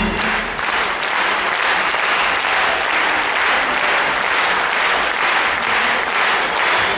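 A concert audience applauding; the music stops at the very start and the clapping runs on steadily.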